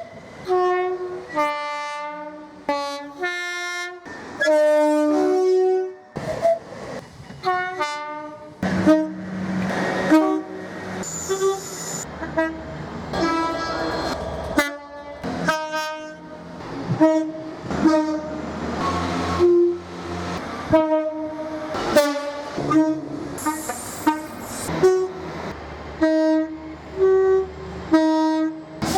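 Train horn played as a tune: a quick run of many short blasts switching between high and low notes, a few held longer, with the train's low rumble underneath in places.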